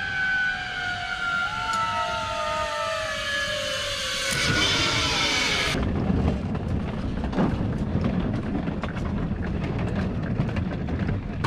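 A motor vehicle's engine whose pitch falls slowly and steadily over several seconds, as when it slows or passes by. About halfway through, the sound changes abruptly to a louder, rougher rumbling noise.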